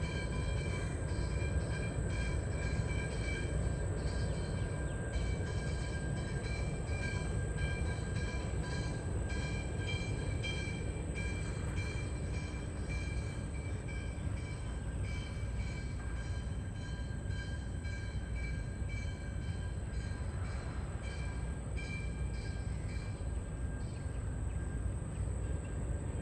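Steady low outdoor rumble with a thin, constant high-pitched whine of several tones above it.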